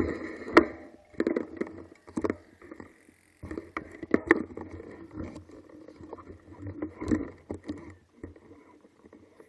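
Irregular knocks and rustles of a handheld camera being moved about and set in place, over a faint steady background.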